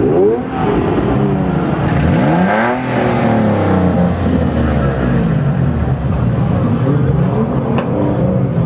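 Car engines revving and accelerating, their pitch climbing and dropping several times, with the biggest rise peaking about three seconds in.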